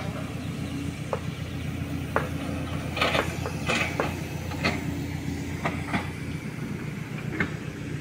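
A hydraulic excavator's diesel engine running steadily, with a scatter of sharp clicks and clanks over it, most of them about three to four seconds in.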